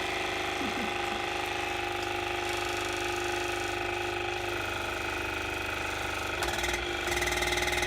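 Electric water flosser's pump motor running with a steady buzzing hum and fast pulsing. About six and a half seconds in its tone shifts and it gets a little louder.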